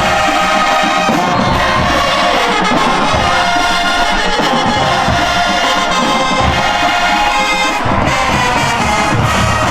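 Brass band playing loudly, trumpets and trombones sustaining chords, with crowd noise underneath.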